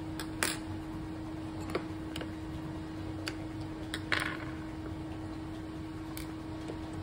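Light clicks and taps of a small metal plate and a thin metal tool against an airsoft rifle's plastic trigger box as its bolt lock plate is taken off, a handful scattered through with the loudest about four seconds in. A steady low hum runs underneath.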